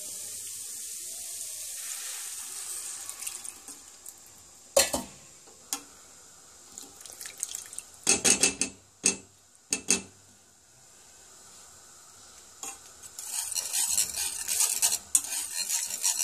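Butter-and-flour roux sizzling in a stainless steel saucepan; the sizzle dies away as milk goes in. A few sharp knocks of a utensil against the pan follow, then near the end a fast run of clicking and scraping as the béchamel is whisked.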